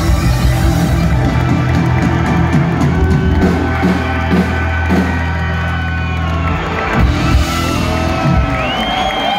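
Live rock band (electric guitar, bass and drums) ringing out a final held chord under crashing drum hits. The chord stops about seven seconds in, giving way to crowd cheers and rising whoops at the song's end.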